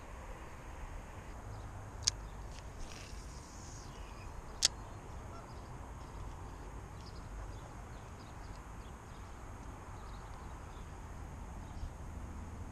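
Quiet pondside ambience: a steady low wind rumble on the microphone with faint bird calls, and two short sharp clicks, about two seconds and four and a half seconds in.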